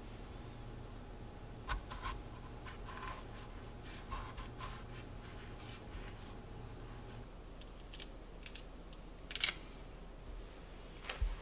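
Kitchen knife cutting into a whole peach on an end-grain wooden cutting board: a run of small scratchy cuts and soft taps, then a couple of sharper clicks near the end.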